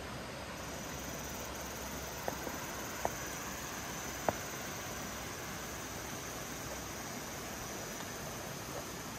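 Steady rushing of a nearby river, with a thin, high, steady insect trill over it. Three faint short clicks come a little after two, three and four seconds in.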